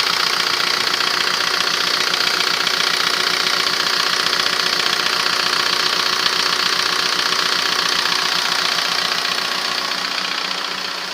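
Audi A3 1.9 TDI four-cylinder turbodiesel idling with a steady diesel clatter, while its injection quantity is being set after an injection pump reseal. It gets slightly quieter near the end.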